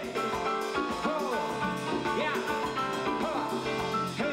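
Live Latin jazz band playing, with a voice at the microphone singing long, wavering, sliding notes over the band.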